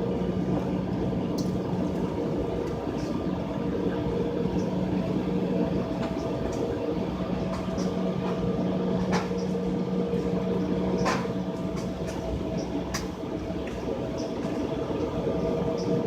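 Jet airliner cabin noise on the ground before takeoff: a steady hum and rush with several held tones, and a few short sharp clicks.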